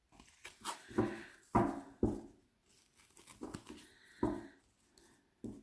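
A deck of glossy oracle cards being riffle-shuffled by the corners: a handful of short riffling bursts, each starting sharply and trailing off.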